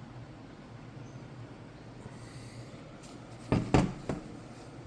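A quick cluster of about three sharp clunks from the 6L80 transmission's oil pump being worked loose and lifted off the case, over a low steady hum.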